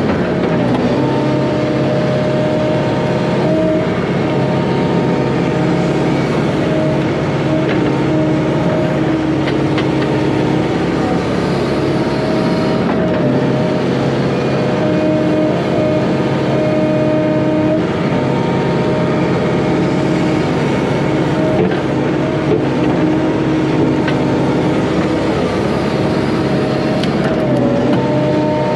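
Volvo 140 excavator working: the diesel engine runs steadily under load with a whine from the hydraulics while the bucket digs out a pond dam. The whine sags in pitch briefly near the end.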